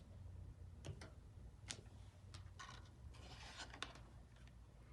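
Near silence with a few faint taps and some soft paper rustling from a hardcover picture book being handled and its page turned.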